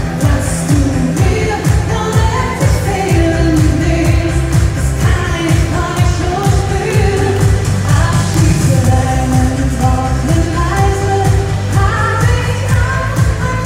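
A woman singing a German Schlager pop song into a microphone over dance backing music with a steady, heavy beat, played through stage PA speakers.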